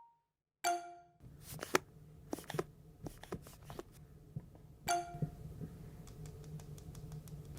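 Small hard objects clinking and tapping, with a short ringing clink twice, about four seconds apart, and a run of faint light ticks near the end.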